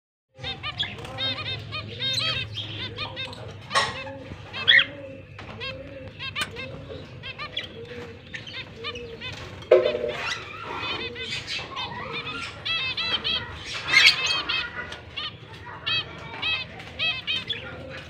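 Caged lovebirds chirping busily: a dense run of rapid, high-pitched chirps, with a lower call repeating about twice a second through the first half and a few sharp, louder squawks.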